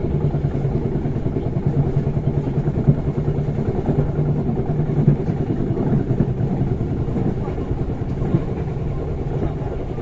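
Passenger train carriage in motion, heard from inside: a steady low rumble of wheels and running gear with a constant low hum under it.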